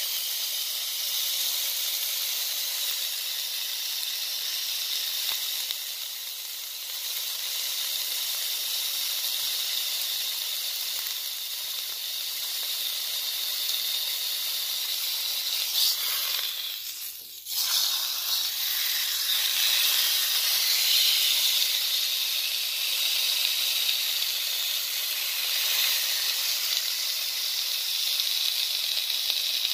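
Steak searing in a hot nonstick frying pan: a steady, high-pitched sizzle of fat and juices spitting in the oil. The sizzle drops away briefly a little past halfway, then comes back.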